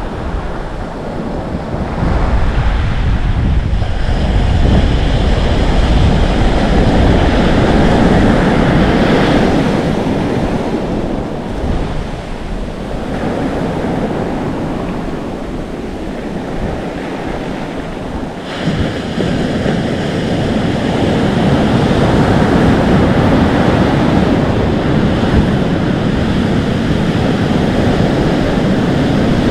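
Atlantic Ocean surf breaking and foaming, with wind blowing on the microphone. The wash swells a couple of seconds in and eases off in the middle. A fresh wave breaks suddenly about two-thirds of the way through and the foam keeps hissing.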